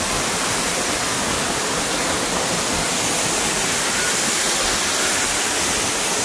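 Waterfall pouring close by: a loud, steady, even rush of falling water.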